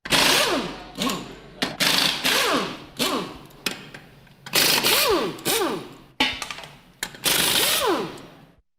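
Pneumatic air tool in an auto repair shop fired in about ten short rattling bursts, each trailing off in a falling whine as the tool spins down.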